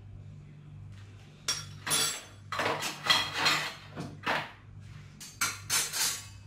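Kitchen utensils scraping and knocking against dishes in a string of short scrapes, starting about a second and a half in, over a steady low hum.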